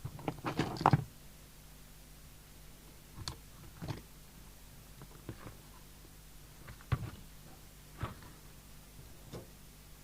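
Side cutters snipping out an added wire and diode on the radio's circuit board: a quick run of sharp clicks in the first second, then a few scattered light clicks, over a faint steady low hum.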